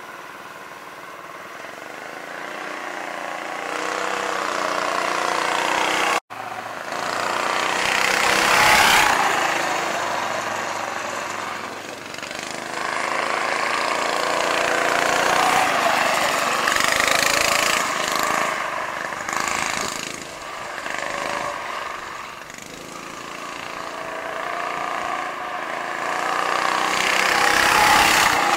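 Predator 212cc single-cylinder four-stroke engine of a go kart with a torque-converter drive, running under throttle as the kart drives around, its pitch rising and falling with speed. It grows loud as the kart passes close, about eight seconds in and again near the end, and cuts out for an instant about six seconds in.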